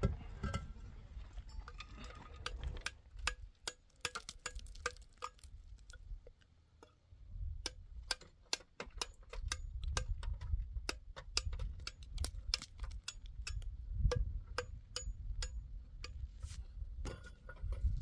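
Quick, irregular sharp clicks and light clinks, several a second, some with a brief ring, over a low rumble.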